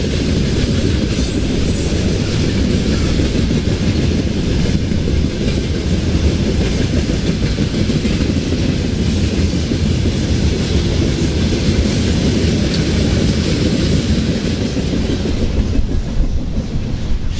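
Freight train of boxcars rolling past close by: a steady, loud rumble of wheels on rail, deepest in the low end, which the uploader presents as the ground shaking under the train. The upper part of the noise thins near the end as the last wagons pass.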